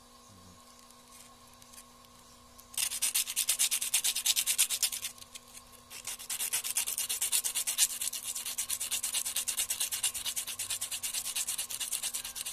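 A new piston ring for a Suzuki F6A (Multicab) engine is rubbed rapidly back and forth against a sheet of abrasive paper, filing down its end to set the ring end gap clearance. The scraping strokes start about three seconds in, pause for about a second midway, then resume.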